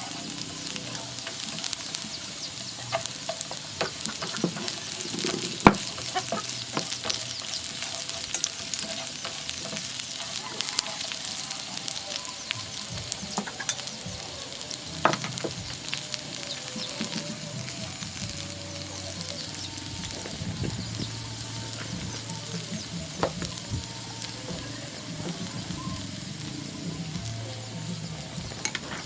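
Food sizzling as it fries in a pan, with a utensil stirring and scraping against the pan, and occasional sharp knocks, the loudest about six seconds in and another near fifteen seconds.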